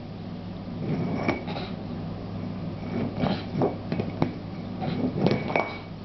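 Upturned dog bowls knocked and shifted by a baby's hands on a hard floor: a series of light, irregular knocks and clinks, two of them with a short ringing tone.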